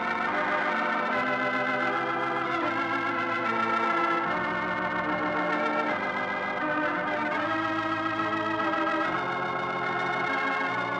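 Organ music: sustained full chords that change every second or two, the program's closing music.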